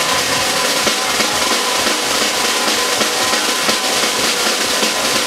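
A rock drum kit played fast and without a break: busy snare and bass drum hits under a constant wash of cymbals, with no other instrument standing out.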